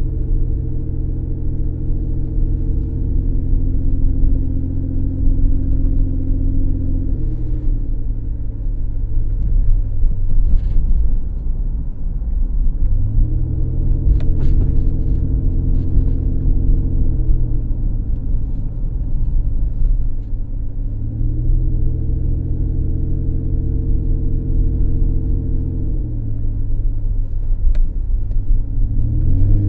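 Car being driven: low road rumble under a steady engine tone that fades into the rumble and comes back several times as the speed changes.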